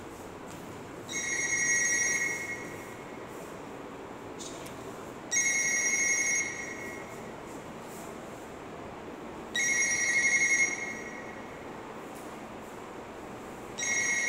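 A telephone ringing: a bright trilling ring about a second and a half long, repeating about every four seconds, four times, with the last cut short.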